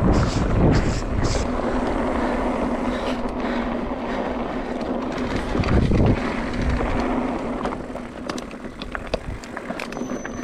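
Mountain bike rolling along a dirt and gravel trail: steady tyre and rolling noise with a steady buzz underneath, and wind rumbling on the microphone in gusts near the start and about six seconds in. Near the end, sharp gravel clicks and rattles.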